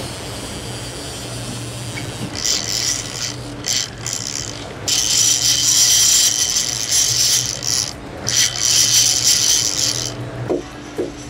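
A big saltwater trolling reel buzzes and ratchets in three long bursts as a hooked king mackerel is fought on the rod, starting about two seconds in. Under it runs the steady low drone of the boat's engines.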